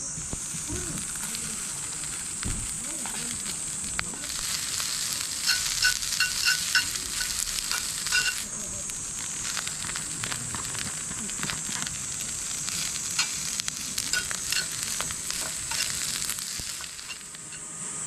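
Meat frying and sizzling in a pan over a campfire, with crackles and a run of quick metallic clinks from a utensil against the pan about six seconds in. A steady high insect drone runs underneath.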